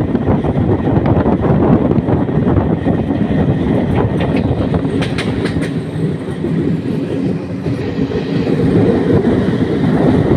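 Passenger train running along the track, heard from beside an open coach window: a steady rumble of wheels on rails, with a few sharp clicks about five seconds in.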